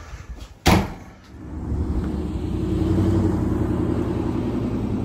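A single sharp bang, like a door slamming, then a vehicle engine comes up and runs steadily.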